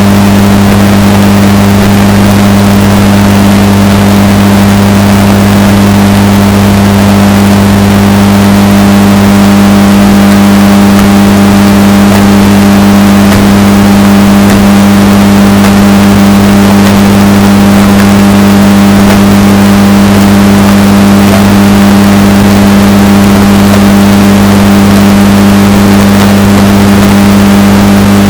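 Washing machine running with a steady, unchanging motor hum, bass boosted and distorted to maximum loudness.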